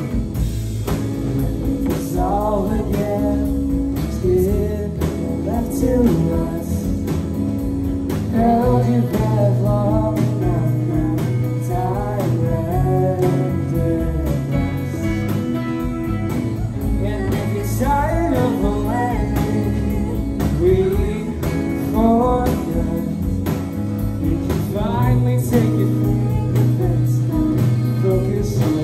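Live rock band playing a song: electric guitars, bass guitar and drum kit, with a singer's voice coming in and out in phrases.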